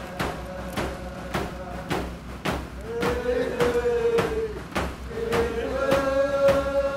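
A drum beating a steady beat of about two strikes a second, with a voice singing a chant that comes in about three seconds in and holds long notes.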